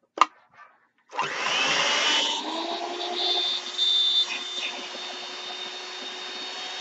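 A sharp click, then about a second in a Hamilton Beach 62682RZ hand mixer's motor starts with a rising whine and runs with a steady high whirr. It is loudest in the first few seconds and settles softer and steadier toward the end.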